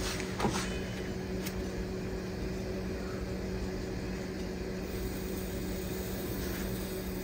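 Steady low hum of a running kitchen appliance, with a faint tap or two in the first couple of seconds.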